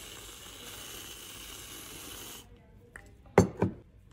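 Aerosol can of whipped cream spraying with a steady hiss, which cuts off about two and a half seconds in. About a second later come two sharp knocks in quick succession.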